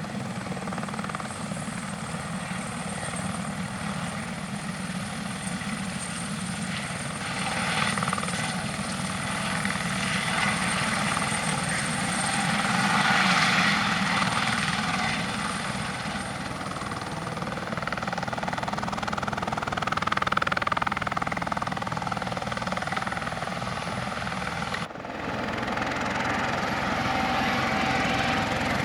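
Airbus H130 (EC130 T2) single-turboshaft helicopter in flight, a steady rotor and turbine sound with a faint whine that grows louder and softer several times as it moves, broken by a very short gap near the end.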